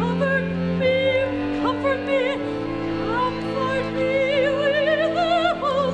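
Operatic singing: a high voice with wide vibrato holding and sliding between notes over sustained low accompanying notes.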